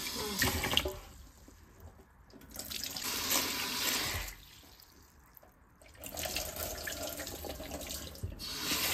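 Water running and splashing in a stainless steel sink as glutinous rice is rinsed in a plastic bowl and the rinse water is tipped out. It comes in three spells, with quieter pauses of about a second and a half between.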